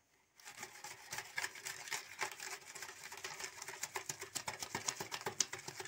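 Rapid, irregular clicking and scraping of a metal mesh tea strainer beaten against a glass bowl, whipping a coffee mixture to raise froth; it starts about half a second in.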